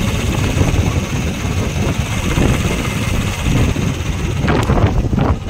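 Wind buffeting the microphone of a camera held on a moving motorcycle, with the engine running underneath as a steady low rumble.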